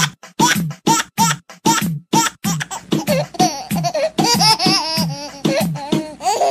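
Laughter in a quick rhythmic string of 'ha' bursts, about three a second, rising into higher, sliding giggles midway, with music underneath.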